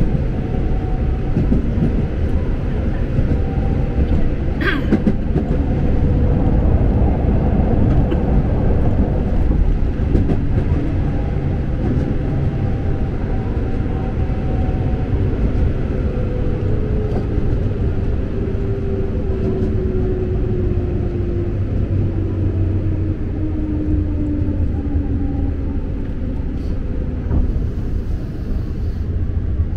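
Electric commuter train running, heard from inside the carriage: a steady rumble with one sharp knock about five seconds in, and a faint whine that slowly falls in pitch over the second half.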